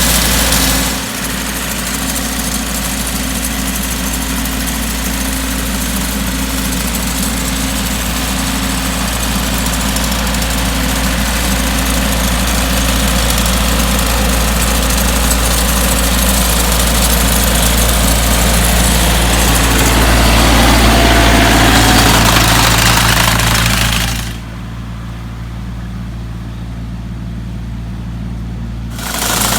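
Tractor engine running steadily. About three-quarters of the way through, the higher sounds drop away for several seconds, leaving only the low engine hum, and then come back.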